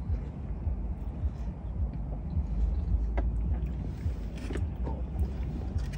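Low, steady rumble of a car heard from inside the cabin, with a few faint light clicks.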